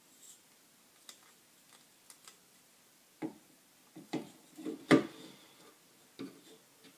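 Handling sounds from tying off yarn on a flower loom: irregular small clicks and light knocks, with the loudest knock about five seconds in.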